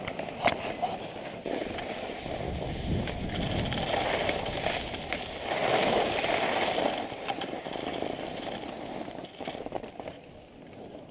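Skis scraping over packed snow, building to its loudest about six seconds in and then fading, with a sharp click about half a second in.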